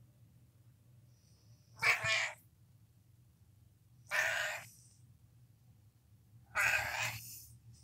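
Domestic cat meowing three times, about two seconds apart; the last call is the longest.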